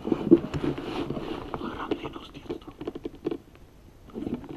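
Close handling noise from a rifle-mounted camera: irregular scrapes, rustles and small knocks as the shooter shifts against the rifle stock. The noise eases off near the end.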